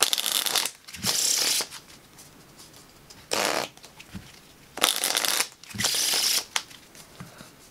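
A deck of linen-finish Triumph playing cards riffle-shuffled in the hands: five quick riffles, each about half a second, the cards flicking rapidly off the thumbs.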